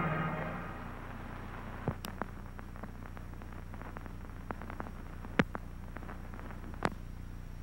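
The last of an orchestral jingle fades out in the first moment. Then comes steady hiss with scattered clicks and pops, the loudest about five and a half seconds in: the surface noise of an old film soundtrack.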